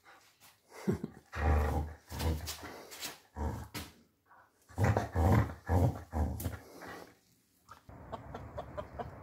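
Dog growling playfully in rough bursts while tugging on a rope toy, in two runs a few seconds long. Near the end the growling gives way to a quieter, steady noise with small ticks.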